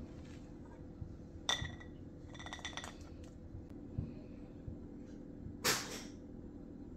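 Light ringing clinks of ceramic dishes as a wooden spoon serves pudding from a baking dish onto a plate: one clink a second and a half in, a quick cluster of them soon after, and a soft knock. Near the end comes a short brushing noise, the loudest sound here.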